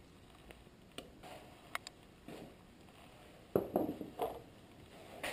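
Handling noise from a small metal chisel plane: a few light clicks, then a short cluster of soft knocks and rustling about three and a half seconds in, and another knock near the end.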